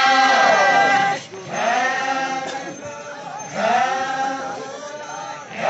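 Group of men and women folk dancers chanting together in unison, a repeated call that rises and falls in pitch, about one phrase every two seconds.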